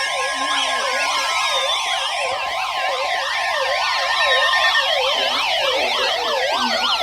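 NOAA Weather Radio emergency alert tones for a particularly dangerous situation flash flood warning. The steady 1050 Hz warning alarm tone sounds for about the first two seconds, layered throughout with rapid up-and-down siren-like tones and a few slower falling tones.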